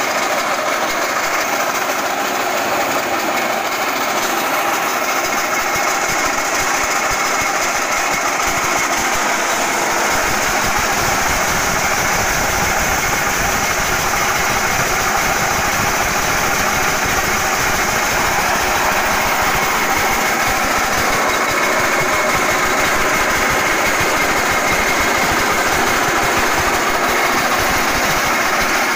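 Forage chopper driven by a small single-cylinder four-stroke petrol engine (Shark SE168, 5.5 HP), running steadily at speed. A deeper rumble fills in about a third of the way through.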